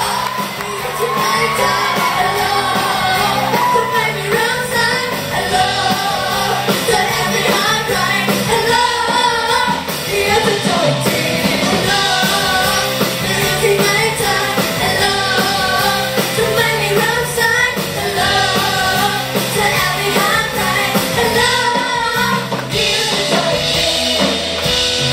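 Live pop-rock music with women singing into microphones over the band.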